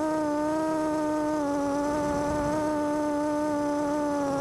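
FPV quadcopter's brushless motors and propellers buzzing at a fairly steady pitch, wavering slightly as the throttle shifts.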